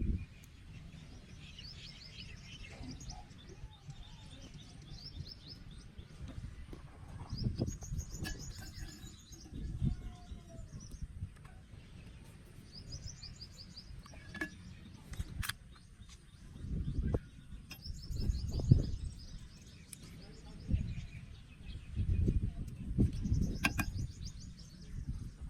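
A bird singing short, high trilled phrases, repeated about every five seconds. Low thumps and a few sharp clicks, like handling noise, sound in between.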